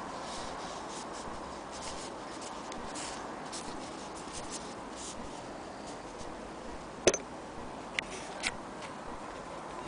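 Fingers handling and rubbing a piece of denim, a soft scratchy rustling over a steady background hiss, then a few sharp clicks about seven and eight seconds in, the first the loudest.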